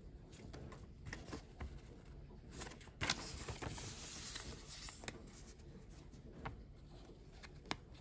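Fold-out paper instruction leaflet being handled and turned over: rustling and crinkling paper, loudest about three seconds in, with a sharp tap near the end.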